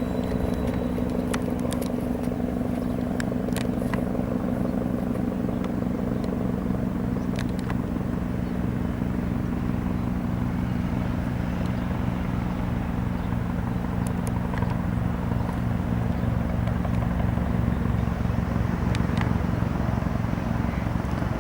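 Bell 412 helicopter running: an even rotor beat over the steady hum of its twin turbine engines, growing a little louder near the end.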